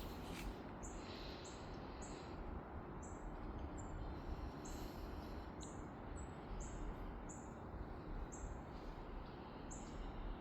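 A small bird chirping: short, high, thin notes repeated about every half second to a second, over a steady low background rumble.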